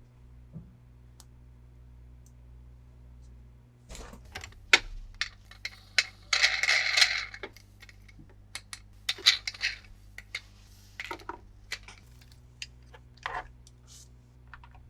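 Hard plastic toy parts being handled: a run of sharp clicks and light clatter with a few short rustles, starting about four seconds in after a quiet opening.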